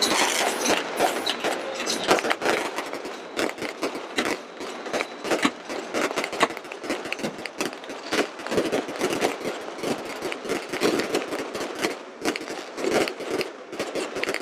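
Fireworks display: a dense, rapid run of crackling and popping from bursting shells, with no let-up.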